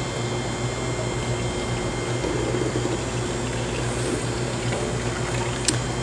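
Liquid gelato mix pouring steadily from a stainless steel pot into a batch freezer, over a steady low machine hum, with a short click near the end.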